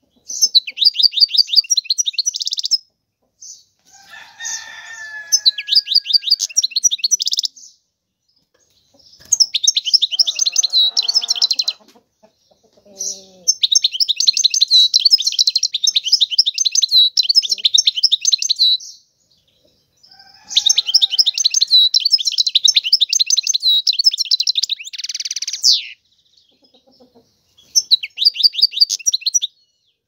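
European goldfinch singing: about six phrases of fast, twittering trills, each a few seconds long, separated by short pauses.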